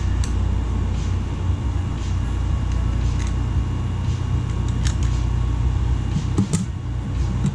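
A steady low mechanical hum with a few sharp clicks and taps, spaced a second or more apart, from small parts being handled while a computer case is taken apart.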